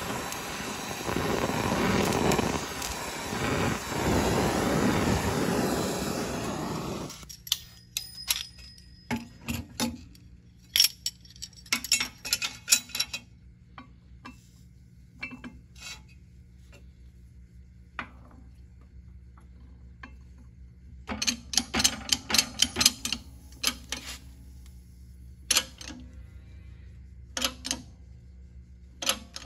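Gas torch hissing as it heats a warped cast-aluminium oil pump cover, shut off sharply about seven seconds in. Sharp metal clicks and knocks follow, some in quick clusters, as a steel bar is set on the hot cover and a press ram is brought down on it to flatten it.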